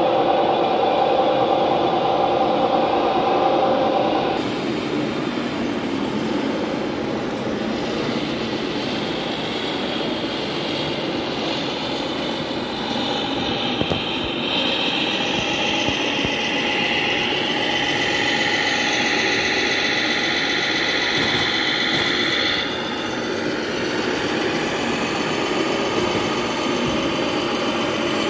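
Radio-controlled scale model trucks running, their small motors whining over a steady noisy background. A lower hum in the first few seconds gives way to higher whines that shift in pitch in the second half.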